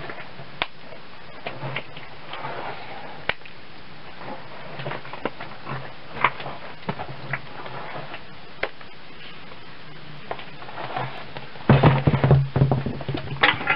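Hands squishing and slapping a heap of wet reclaimed clay, broken up to a near-liquid slurry: scattered soft squelches and clicks, then a louder stretch of squelching near the end as a handful is grabbed and worked.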